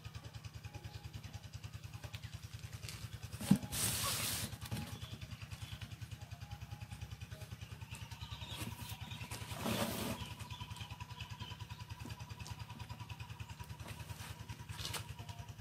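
Cardboard box being handled and turned over on a wooden table: a knock and a rustling scrape about three and a half seconds in, and another scrape near ten seconds. A steady low pulsing hum runs underneath.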